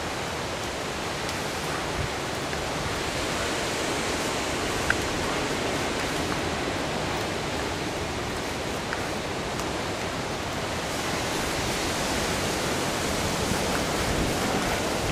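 Hurricane winds rushing steadily through the trees, a constant hiss that slowly builds, with a single short tick about five seconds in.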